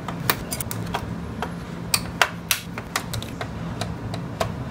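Irregular sharp clicks and taps of plastic and metal parts as an HP Smart Tank 500 inkjet printer is taken apart by hand and with a screwdriver, over a steady low hum.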